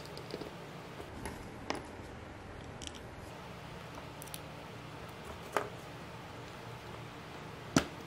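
Light clicks and taps of 3D-printed plastic parts being handled and fitted together, with a few sharper clicks, the loudest near the end, over a low steady hum.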